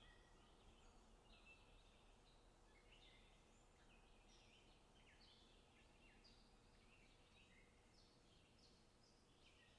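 Faint small songbirds chirping: a near-continuous stream of short, high chirps, often several overlapping.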